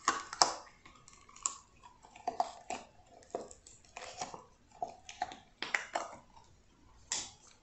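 Irregular sharp clicks and short crackles as a cured resin lid is worked and peeled out of its mold.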